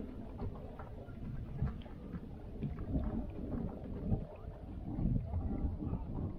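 Water sloshing and gurgling against the hull of a small boat in irregular low surges, with a few faint knocks.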